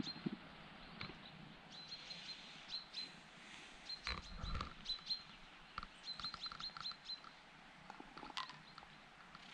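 Domestic cat purring quietly right at the microphone as it rubs against a man's face, with small birds chirping in short, high, repeated notes.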